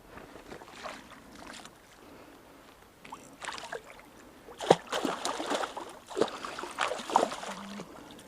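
Water splashing and sloshing in irregular bursts around a trout hooked on a tight drag, starting a few seconds in, with the loudest splash a little after the middle.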